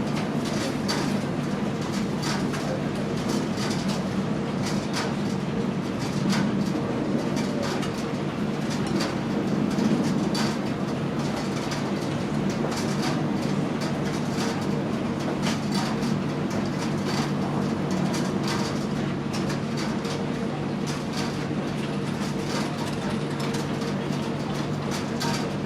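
Commercial gas tumble dryer running near the end of its cycle, its drum turning with a steady hum and irregular clicks and knocks from the load tumbling inside.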